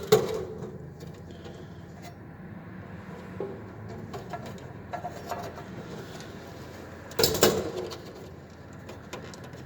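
Small clicks and rattles of wires being handled and pushed into a fire alarm panel's terminal strip, with a louder burst of rattling about seven seconds in, over a steady low hum.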